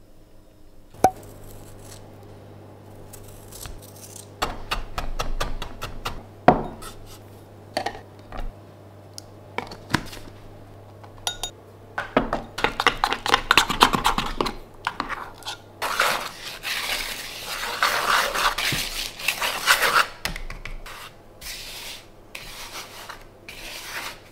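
Kitchen baking-prep sounds: utensils and hands clinking and knocking against bowls, with stretches of scraping and of hands rubbing through a dry flour mix in a mixing bowl. A low steady hum sits underneath for the first part.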